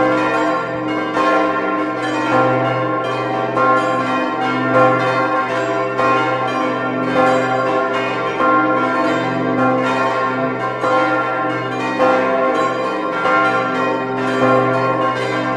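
Several church bells of the Visp campanile swinging and ringing together in a full peal: many overlapping strokes follow one another unevenly, over the sustained hum of the deepest bell.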